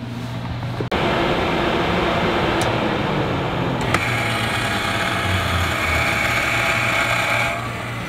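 RV ceiling vent fan switched on with a click about a second in, running with a steady whir, a low hum and a high whine. A second click a few seconds later makes the high whine stronger, and the fan winds down near the end.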